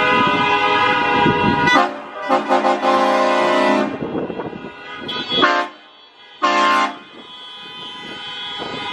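Vehicle horns honking in slow traffic: a long held blast over engine rumble, then two short honks about a second apart.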